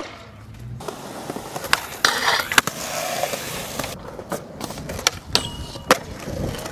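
Skateboard wheels rolling on smooth concrete, with several sharp clacks of the board hitting the ground.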